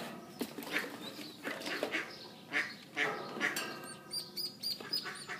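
Ducklings peeping in distress, many short calls in quick succession with a string of very high, thin peeps about four seconds in. They are panicking at being unable to get out of the water.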